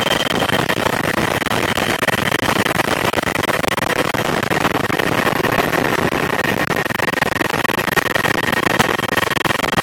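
Helicopter in flight heard from inside its open-sided cabin: a loud, steady wash of rotor and engine noise with a rapid pulsing beat and a steady high turbine whine.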